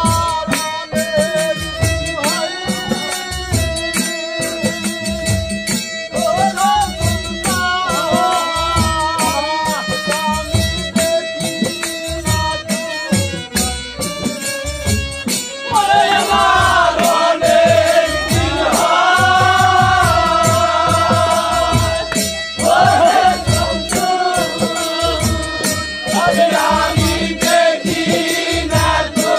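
Live Bengali bicched folk music: a harmonium holds a steady melody over a regular hand-drum beat and rattling percussion. A voice sings strongly, with a wavering pitch, from about halfway through.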